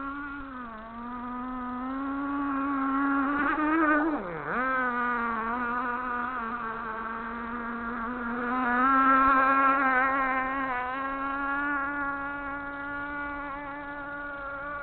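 K&B 3.5 cc glow-fuel two-stroke outboard on an RC model boat running at high revs with a high, steady buzz. About four seconds in the pitch dips sharply and comes straight back up, and it gets louder around nine to ten seconds in.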